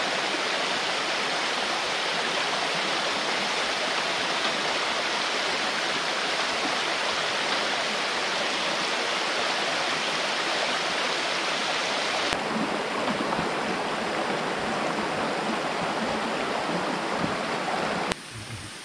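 Steady rushing water. The sound shifts abruptly about twelve seconds in and drops sharply much quieter just before the end.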